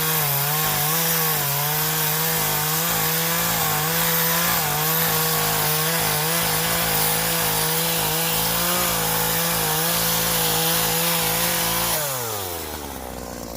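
Craftsman 42cc two-stroke gas chainsaw running at high revs, its pitch wavering slightly. About twelve seconds in the throttle is let off and the engine winds down to idle.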